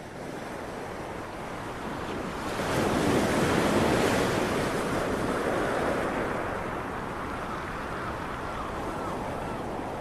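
Sea waves and wind in a steady rushing wash that swells a few seconds in and then settles.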